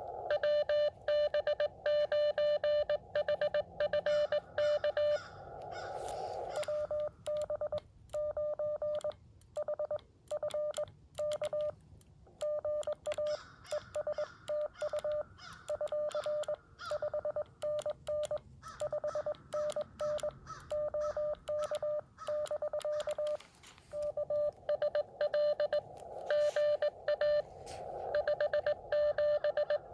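Morse code (CW) audio from a Xiegu X6100 transceiver: a single steady tone keyed on and off in rapid dots and dashes, with receiver hiss between some of the transmissions.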